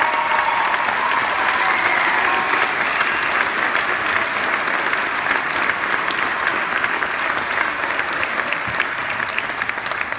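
Audience applauding in a concert hall, a dense steady clapping that slowly thins and fades near the end.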